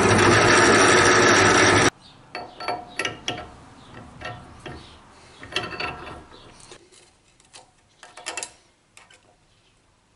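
Bench drill press running and drilling into a metal plate, a loud steady noise that cuts off suddenly about two seconds in. Then a scatter of light metallic clicks and scrapes as hand tools and a steel pin are worked against the part, dying away near the end.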